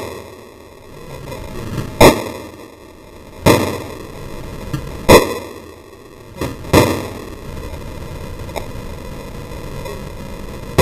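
Pistol shots, five in all, roughly one every second and a half, with the last two fired close together about two-thirds of the way through.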